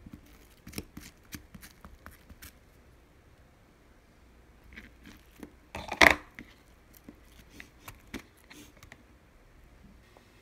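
Kitchen knife slicing an onion on a cutting board: a quick run of sharp knocks in the first two and a half seconds, more scattered cuts after, and a louder clatter about six seconds in.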